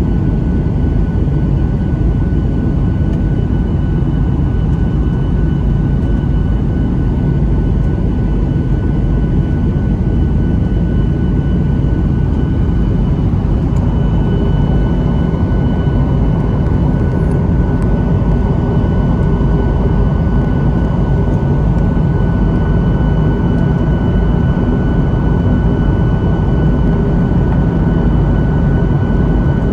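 Jet airliner engine and airflow noise, a loud, steady drone with a thin, constant whine over it, as heard in the cabin.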